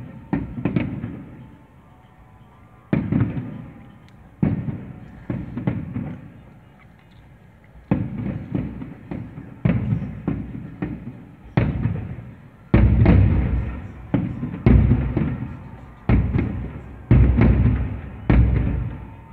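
Aerial fireworks shells bursting in a long series of booms, each trailing off in a low rumble over about a second. The bursts come more closely and hit harder over the last several seconds.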